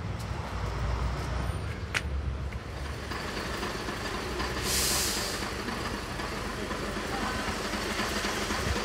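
A vehicle engine rumbling low over the first few seconds, with a click about two seconds in, then a short burst of hiss about five seconds in, over steady street noise.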